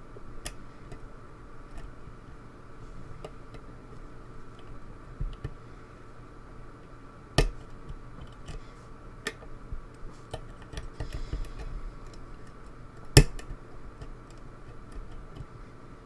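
Lock picking: small metallic ticks and clicks of a pick working the pin stack of a pin-tumbler challenge lock held under tension. Two sharper clicks come about seven and thirteen seconds in.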